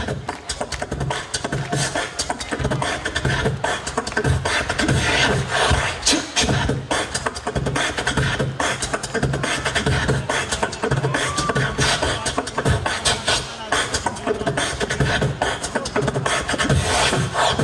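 Solo beatboxer performing into a handheld microphone through the stage PA: a fast, unbroken run of mouth-made drum hits over a deep humming bass.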